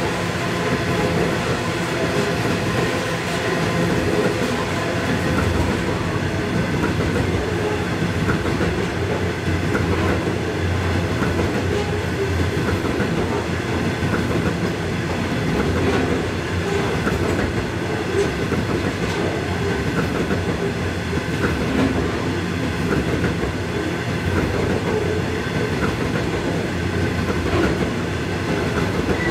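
Coal hopper wagons of a long freight train rolling past close by: a steady rumble of steel wheels on the rails, with occasional clicks.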